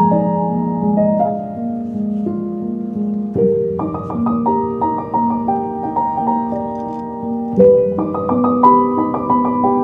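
Background piano music, soft sustained chords with a gentle melody.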